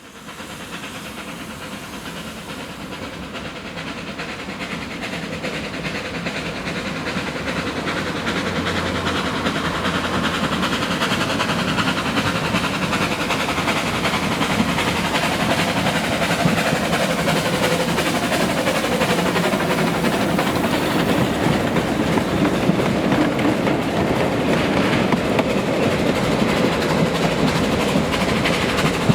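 Large Quarry Hunslet steam locomotive Lilla hauling a short goods train at speed: wagon wheels clattering over the rail joints along with the engine's running. It grows louder over roughly the first ten seconds and then stays loud.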